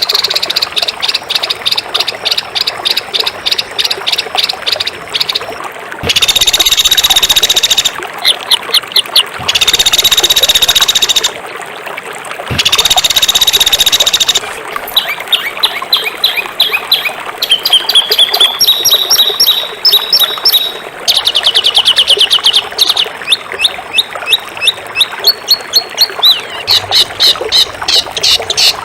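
Songbird song in a bird-training (masteran) recording: fast runs of sharp, repeated high notes, broken early on by three harsh, buzzing rattles of about two seconds each, then rising trills and rapid rolls of notes.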